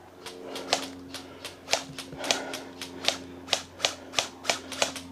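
Airsoft guns firing a quick, irregular string of sharp single shots, about fifteen cracks over five seconds.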